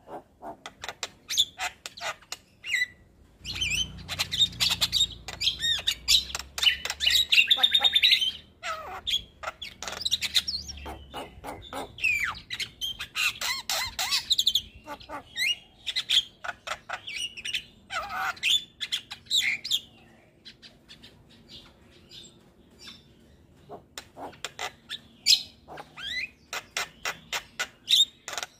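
Javan myna singing nonstop: a fast stream of clicks, chatters, squawks and short whistled notes. It is busiest a few seconds in and again around the middle, with a quieter spell past the two-thirds mark.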